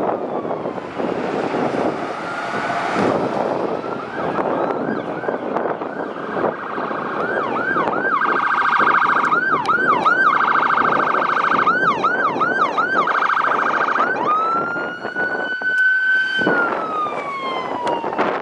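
Emergency vehicle sirens on responding fire apparatus. A wail falls away, then a fast yelp of about four sweeps a second sounds over a steady blaring tone. A long wail then rises, holds and falls, over diesel engine and road noise.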